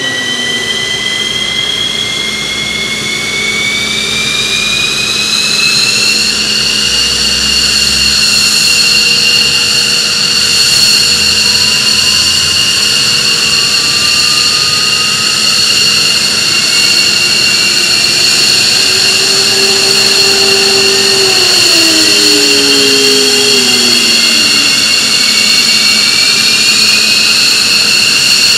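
F-15C Eagle's Pratt & Whitney F100 turbofan engines spooling up during engine start. A high whine rises in pitch and levels off about six seconds in, while a second whine climbs slowly through the rest.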